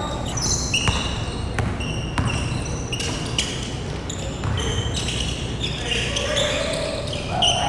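Basketball game on a hardwood gym floor: a ball bouncing and many short, high sneaker squeaks as players cut and stop, with players' voices.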